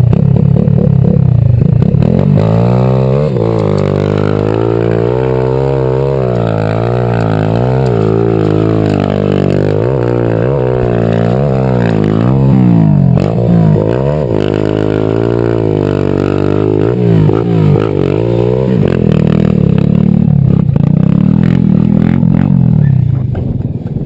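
Pit bike's single-cylinder engine close to the microphone, revving up and down over and over while riding through sand. It runs lower and steadier in the first few seconds and again over the last few.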